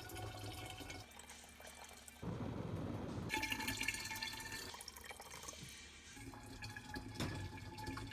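Water being poured into a portable pump-pressurized shower tank to fill it, in several pours with short pauses between them.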